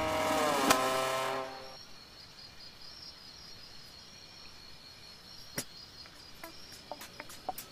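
A held, horn-like music note sinks slightly in pitch and fades out in the first two seconds. It leaves faint, steady high-pitched cricket chirring, with a few sharp clicks near the end.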